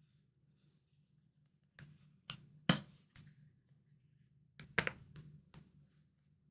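A Spigen plastic phone case being handled and pressed onto an iPhone 12, giving a series of sharp clicks and knocks. There are about seven, starting almost two seconds in, and the two loudest come near the middle and later on.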